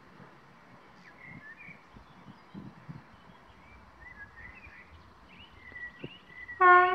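Birds chirping over a faint low rumble, then near the end an EP07 electric locomotive's horn sounds one loud, steady note.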